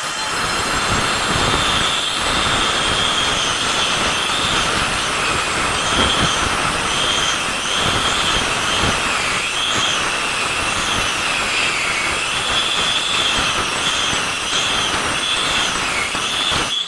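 Handheld power cutter cutting a groove into a masonry wall for a concealed pipe line. It runs continuously, with a high whine that wavers and dips as the blade bites.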